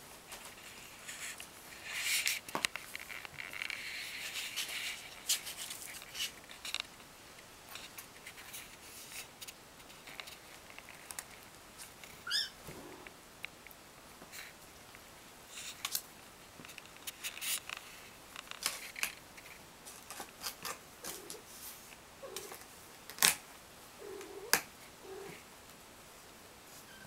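Kittens scrambling and wrestling in a cardboard box: irregular scratchy rustling and clicking of claws and paws on cardboard and blankets, busiest early on, with two sharp knocks near the end.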